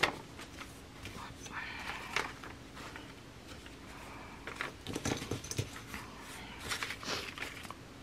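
Paper being handled on a tabletop: soft rustles and light taps as a sheet is picked up, turned and laid down, with a few louder rustles about five and seven seconds in.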